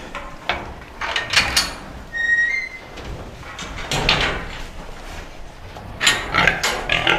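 Metal clattering and knocking as pig feed is scooped from a metal bucket and tipped into the sows' feeders, with rattles of the steel crate fittings. A short high squeak comes about two seconds in, and the clatter grows busier near the end.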